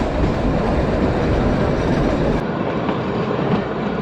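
Kalka–Shimla narrow-gauge toy train running on the track, a steady noise of wheels and carriage. About halfway it changes abruptly and the deep low end drops away.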